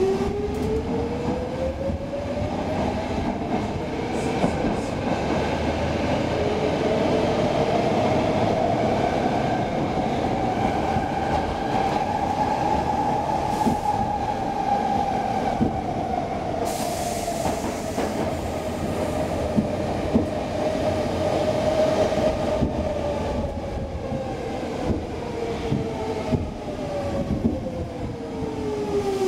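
Stockholm Metro C6 subway car running between stations, heard from inside the car: a motor whine rises in pitch over the first dozen seconds as the train gathers speed, then falls steadily as it slows, over a steady rumble of wheels on track with scattered clicks. A brief hiss comes a little past halfway.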